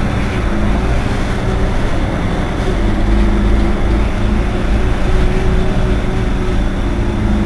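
Irisbus Citelis 18 articulated city bus idling at a stop: a steady low engine hum with a higher tone held above it.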